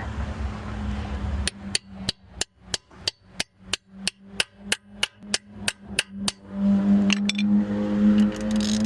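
A hammer striking metal in a quick steady run, about four blows a second for some five seconds, on a lug nut whose capped cover is stripping. A steady mechanical hum takes over near the end.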